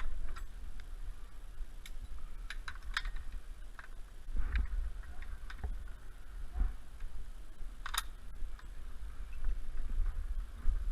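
Scattered light clicks and taps, about a dozen at irregular spacing, the sharpest about three-quarters of the way through, over a low rumble.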